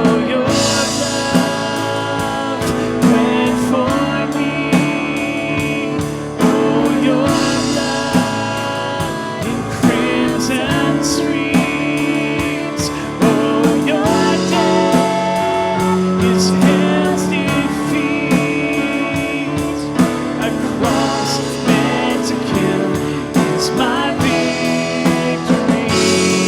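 Live worship band playing between sung lines of the song, with guitar and a drum kit keeping a steady beat.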